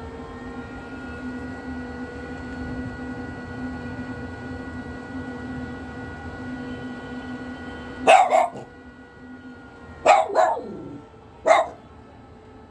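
A Japanese Spitz barking five times in three short groups in the second half, over a steady droning hum that fades out after the first barks.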